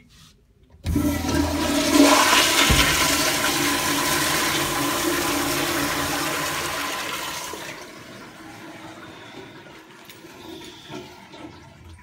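Crane commercial toilet flushing through its flushometer valve: a sudden loud rush of water starts about a second in, with a low thump a couple of seconds later. The rush runs for about six seconds, then drops to a quieter wash of water as the flush winds down.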